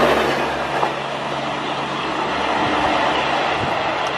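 LHB passenger coaches passing at speed close by, with continuous wheel-and-rail rush and some clickety-clack. A low steady hum from the end power car's diesel generator runs under it.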